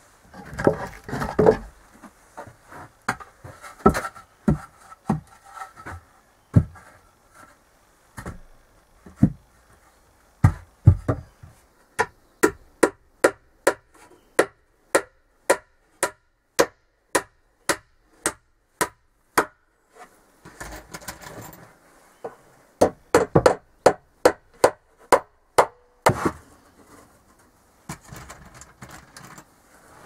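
Nails being hammered into wooden planks: scattered knocks at first, then a long run of even blows about three a second, a pause, and a second quick run of blows.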